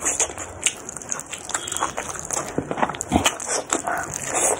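Close-up chewing and wet lip-smacking of someone eating pork: a string of irregular moist clicks and smacks.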